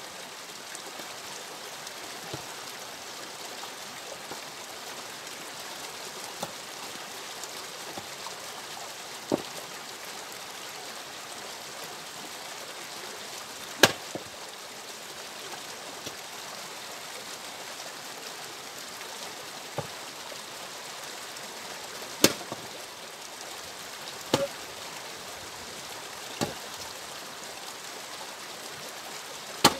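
Axe splitting firewood logs on a chopping block: sharp, irregular cracks a few seconds apart, the loudest about halfway through, two-thirds through and at the very end. A steady rushing noise runs under them.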